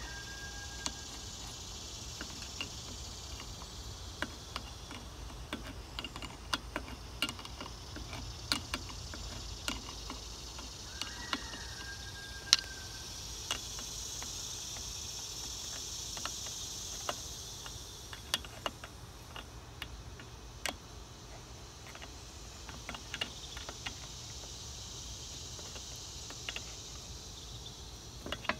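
Irregular light metallic clicks and taps of a wrench on steel hydraulic hose fittings as they are snugged down onto the trencher's hydraulic cylinder.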